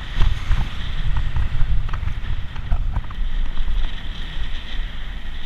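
Wind buffeting a bicycle-mounted action camera's microphone while riding, a gusty low rumble, with a few small clicks scattered through it.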